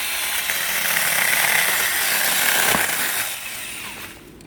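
Saker 6-inch 20 V battery mini chainsaw running under load as it cuts. It eases off about three seconds in and stops near the end.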